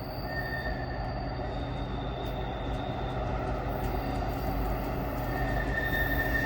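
Train rolling by with a steady low rumble and a thin, high squeal from the wheels on the rails that comes in near the start and again in the second half. The sound grows slowly louder.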